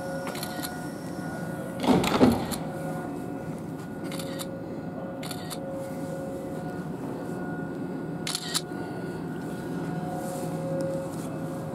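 South Western Railway Class 450 electric multiple unit standing at the platform, its onboard equipment giving a steady hum with several held tones. A loud short rush of noise comes about two seconds in, and a brief click a little after eight seconds.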